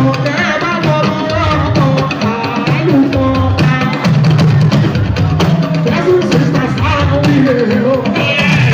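Live band music: a man singing into a microphone over drums and percussion.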